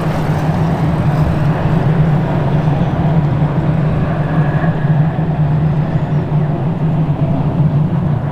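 Electric passenger train running past: a steady rumble with a strong low hum.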